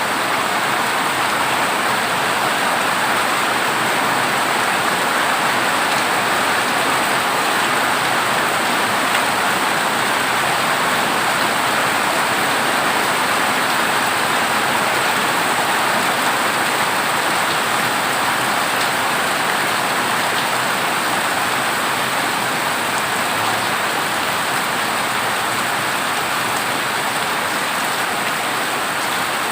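Heavy rain falling steadily on a worn corrugated zinc roof, with no thunder.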